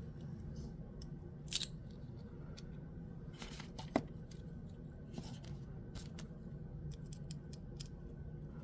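Gao Studio Magnetic Master 2.0 magnetic fidget toy being worked by hand: scattered light clicks and brief scrapes as its magnetic parts snap and slide, with one sharper click about four seconds in.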